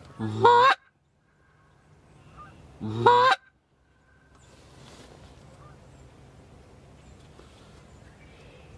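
Two loud goose honks, each breaking sharply from a low note up to a high one, the second about two and a half seconds after the first.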